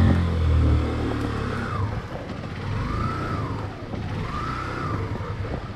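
Motorcycle engine running on an off-road ride, loud at the start and then easing off to a lower steady run, with a whine that rises and falls in pitch three times.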